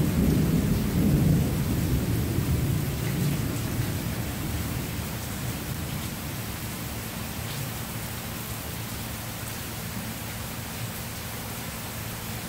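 Rolling thunder, loudest about a second in and dying away over the next few seconds, over the steady hiss of falling rain.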